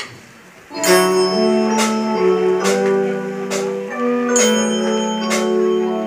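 A band starts playing about a second in: held chords that change every second or so, over a beat with a sharp hit roughly once a second.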